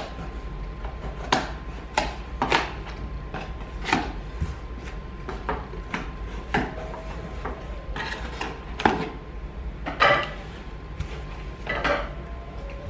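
A cardboard shipping box being opened and handled by hand: irregular knocks, taps and scrapes of cardboard, about one a second.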